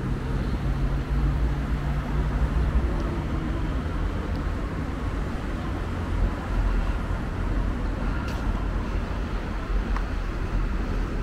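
Steady street traffic noise, with a vehicle engine's low hum fading out about three to four seconds in.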